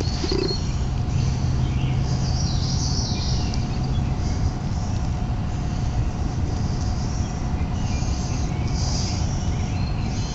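Steady low rumbling noise with a faint constant hum, and songbirds chirping in short spells high above it.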